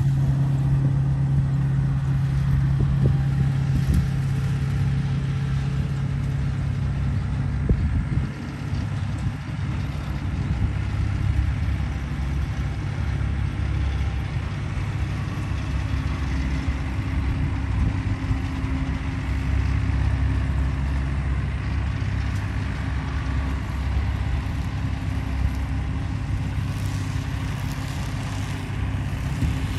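Small engine of a grass-cutting machine running steadily. About eight seconds in, its pitch drops to a lower, rougher drone.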